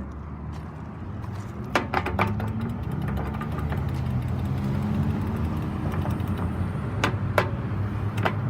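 McCain pedestrian crosswalk push buttons clicking as they are pressed: a quick run of three presses about two seconds in, then single presses about seven seconds in and near the end. Steady road-traffic rumble of passing and idling vehicles runs underneath.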